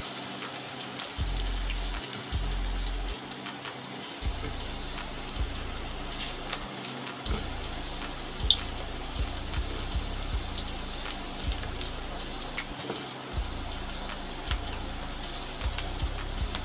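Onion pakora batter deep-frying in a kadhai of hot oil: a steady sizzle with scattered sharp crackles and pops, the loudest pop about eight and a half seconds in.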